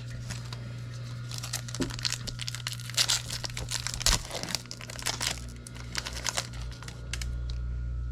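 Wrapper of a hockey card pack being torn open and crinkled: a run of sharp crackles and rips, loudest about three and four seconds in, dying away after about six and a half seconds.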